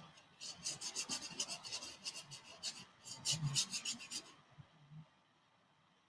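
Paintbrush scrubbing oil paint onto a stretched canvas in quick back-and-forth strokes, about six a second, with a short pause partway through; the strokes stop a little after four seconds.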